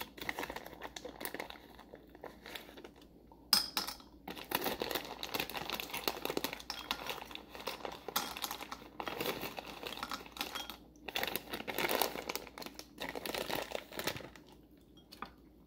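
Plastic bag of chocolate crinkling as it is handled and tipped to shake the chocolate into a glass bowl, in irregular bursts with short breaks.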